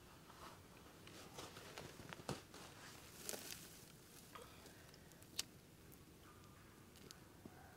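Faint, scattered clicks and light rustling of small dry twigs and kindling being handled and laid for a campfire, with a few sharper snaps about two, three and five seconds in.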